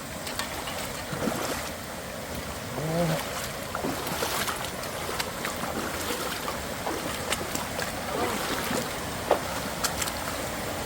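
Waterfall on a flooded creek rushing steadily, with a few small clicks and knocks.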